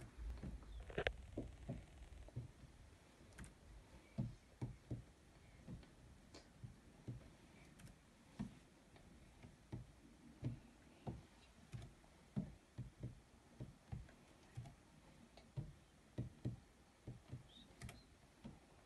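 Laptop keyboard keys tapped in a faint, irregular string of light clicks, about two or three a second, as digits are entered one at a time.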